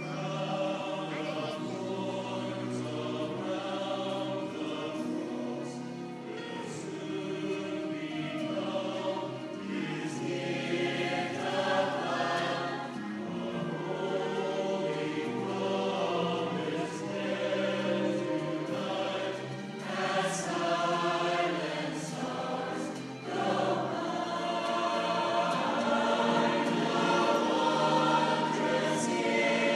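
A choir singing, the sound swelling a little in the last few seconds.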